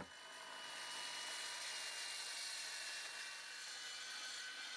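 Handheld circular saw starting with a sharp click and spinning up over about a second, then running steadily with a high whine as it cross-cuts a thick big leaf maple slab.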